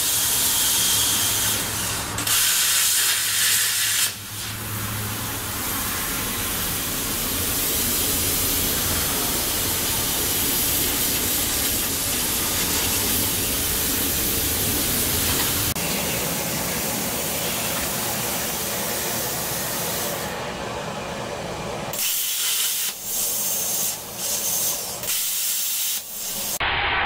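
Longevity Forcecut 40D plasma cutter torch hissing steadily with its compressed-air flow. Near the end it cuts out and starts again several times in short bursts. This stop-start is typical of the torch cycling and dropping its arc, which the owner traced to a bad ground connection.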